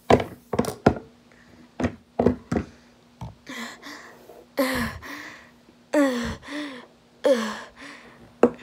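Plastic toy animal figurines knocked and tapped against a wooden surface, a quick run of sharp knocks in the first three seconds. After that comes a voice making three short growling animal noises that drop in pitch, with a faint steady hum underneath.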